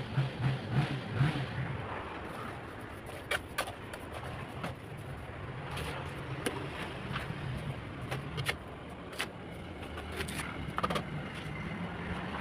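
Scattered short clicks and scrapes of a trowel working wet cement mortar in a mold, over a steady low hum. A few louder low pulses come in the first second or two.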